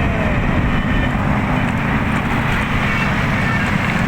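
Road traffic noise: steady engine and road rumble from motor vehicles, with a few faint short high tones.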